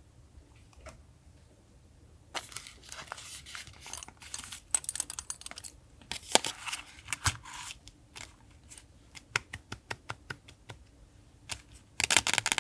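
Paper and stickers being handled during collage journaling: rustling and crinkling with sharp taps and clicks. It starts about two seconds in and comes in irregular bursts, with a dense rustle near the end.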